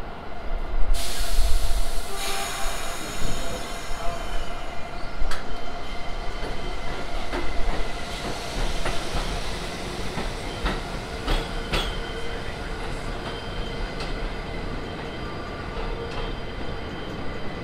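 A set of R62A subway cars pulling out of an elevated station. About a second in there is a burst of air hiss, then steady wheel squeal, and the wheels click over rail joints as the train moves away. The sound fades in the second half.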